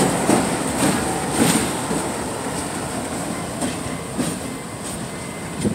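Livonia, Avon & Lakeville diesel-hauled freight train passing close by: wheels clicking over the rail joints above a rumble that fades as the train draws away, with one louder knock near the end.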